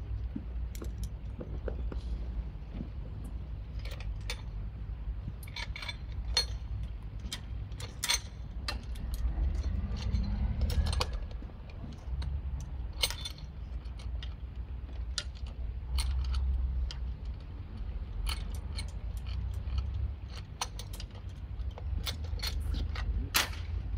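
Metal rope-rescue hardware on a well-rescue tripod rig, clinking and clicking irregularly as it is handled and rigged, over a steady low rumble.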